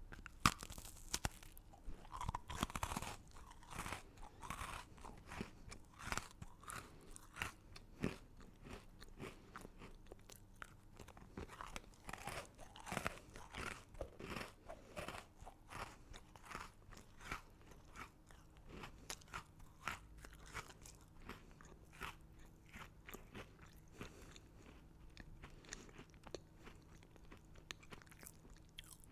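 Close-miked crunchy chewing of hard candy: a person bites down with a loud crunch just after the start, then keeps chewing in a steady run of sharp crackles that thin out toward the end.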